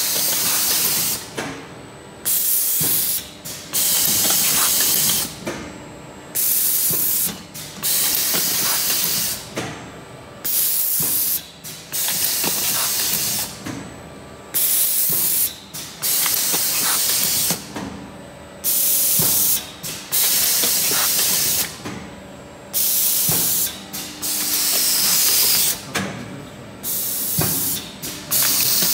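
Pneumatic twin-head pastry press on a 12-station rotary machine cycling, its compressed air hissing out in short loud bursts every second or two, with occasional knocks from the pressing heads and the indexing table.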